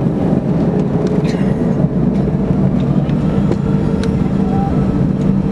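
Airbus A320-211 cabin noise during taxi, heard from a seat over the wing: its CFM56 engines near idle give a steady drone with a low rumble, holding an even pitch.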